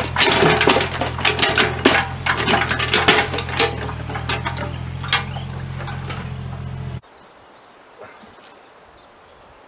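Mini excavator's diesel engine running steadily while its steel bucket scrapes over stony soil, with many sharp clinks and clicks of stones against the metal. About seven seconds in the engine sound cuts off abruptly, and only a few faint knocks remain.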